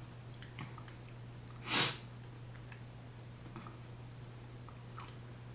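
Close-up chewing and soft mouth clicks while eating, over a steady low hum. A short, louder rush of breath comes a little under two seconds in.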